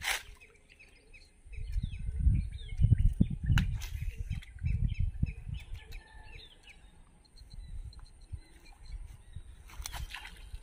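Small birds chirping in quick short calls over a low rumbling noise on the microphone; just before the end, a splash at the water's surface as a snakehead strikes.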